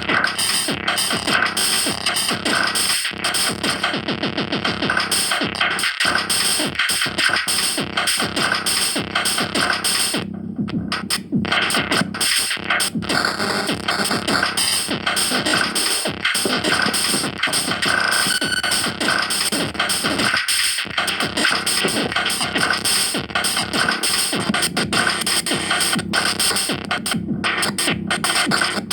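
Electronic music playing continuously, with a brief dip in the high end about ten seconds in.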